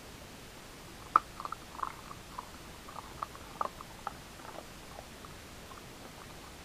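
A beagle chewing a crunchy wasabi bean: a run of short crisp crunches and mouth clicks, the sharpest about a second in, thinning out after about four seconds.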